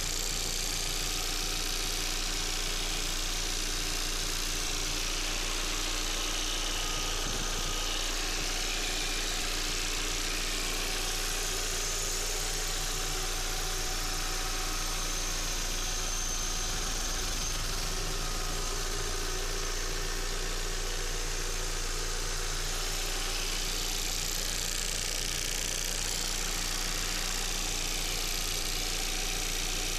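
VW Passat B5's 1.8T (AEB) turbocharged four-cylinder engine idling cold, with a steady ticking from the passenger side of the engine bay that the owner calls a strange sound and a fault.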